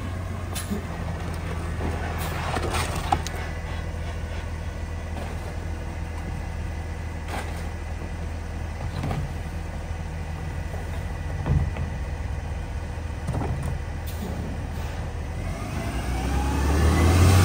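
Rear-loader garbage truck idling steadily while trash carts are emptied into its hopper, with scattered knocks and bangs of carts and bags. Near the end the engine revs up and the sound swells.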